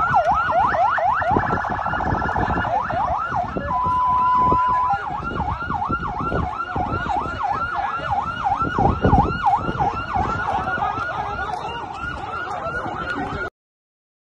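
Vehicle sirens wailing together in a rapid yelp that rises and falls a few times a second. A brief buzzing tone cuts in about two seconds in and a steady tone about four seconds in. Everything cuts off suddenly near the end.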